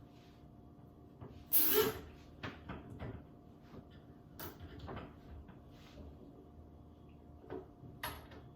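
Handling clicks and knocks as a nylon cable tie is wrapped around electrical cables and pulled tight, with one louder, longer rasp about one and a half seconds in and smaller clicks after it.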